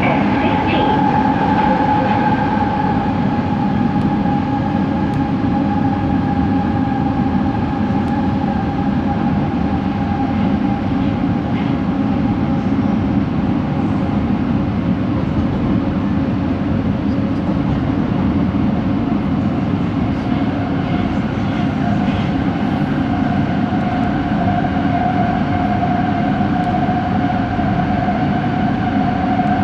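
Rail coach running, heard from inside: a steady rumble of wheels on track under a distinct motor whine that slowly drops in pitch, fades a little past the middle and comes back lower near the end. The whine is the abnormal traction motor noise from this coach.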